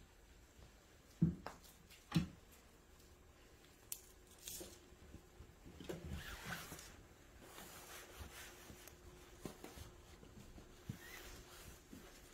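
Two soft thumps about a second apart, then light rustling and small scattered clicks as a cat leaps at and bats a ribbon wand toy.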